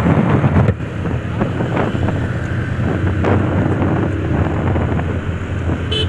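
Motorcycle engine running while riding, with wind buffeting the microphone.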